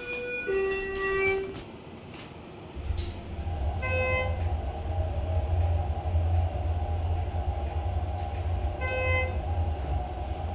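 Elevator car descending: a two-note falling tone at the start, then the car sets off about three seconds in with a steady low rumble and hum. A short chime sounds twice, about five seconds apart, as it passes floors.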